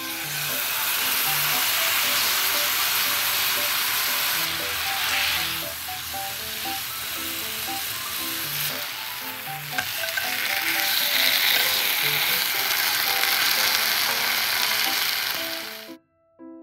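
Marinated chicken breast sizzling as it fries in oil in a non-stick pan over low heat. The sizzle starts as the meat goes in, swells and eases a little, then stops abruptly near the end.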